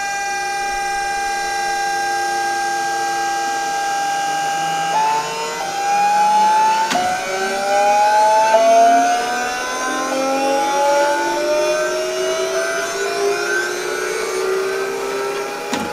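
Electric motor of a homemade kart fed by a home-built VVVF inverter, singing like a train's traction motor. A steady whine is held for about five seconds, then a run of tones glides upward in steps and jumps, the pulse-mode changes of a VVVF inverter as the motor speeds up.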